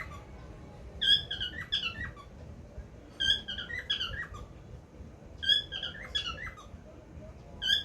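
A bird calling: a phrase of several short, squeaky notes, repeated four times about every two seconds.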